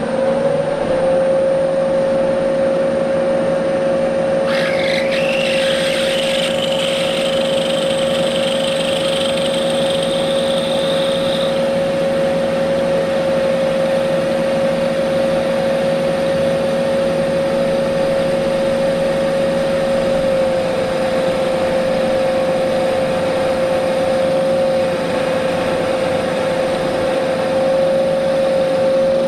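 Milling machine running steadily with a drill bit boring into the end of a 12 mm metal bar, drilling the hole for an M6 thread. From about four seconds in, a high squeal rises in pitch and holds for about seven seconds as the bit cuts, then stops.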